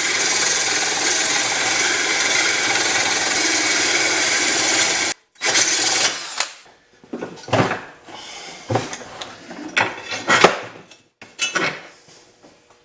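Electric drill spinning a blade-sharpening stone against a lawn mower blade's cutting edge, grinding metal off the heavy side to bring the blade into balance. One long steady grind of about five seconds stops suddenly, followed by a series of shorter grinds.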